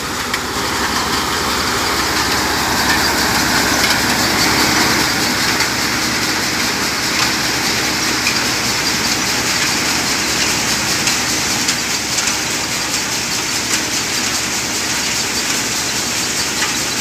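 Tractor-driven NJT thresher running steadily while threshing soybeans, with a continuous hiss of cleaned beans pouring down its outlet chute over the tractor engine's steady drone.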